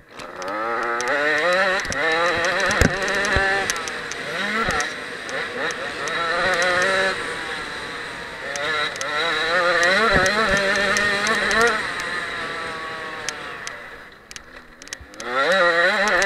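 Husqvarna TC 65's two-stroke single-cylinder engine revving hard under riding on a dirt motocross track, its pitch climbing and falling again and again as the rider works the throttle and gears. The revs drop off briefly near the end, then climb again, with scattered sharp ticks throughout.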